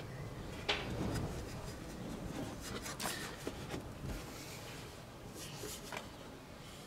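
Faint handling sounds from a computer case being worked on: rubbing with a few light clicks and knocks, about three of them spread out.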